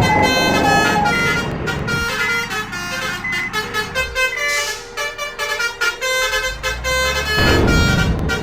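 Basuri horn, the multi-tone 'telolet' vehicle horn, playing a tune of stepping notes, with vehicle engine rumble beneath at times.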